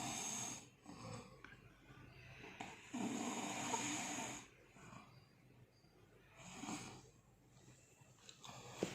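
Snoring in slow, rough breaths, the loudest one about three seconds in and a weaker one near the end.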